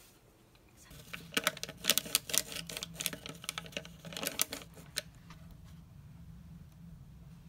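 Plastic stick packet of misutgaru grain powder crinkling and crackling as it is handled and emptied into a ceramic mug, a dense run of sharp crackles lasting about four seconds. A low steady hum sits underneath from about a second in.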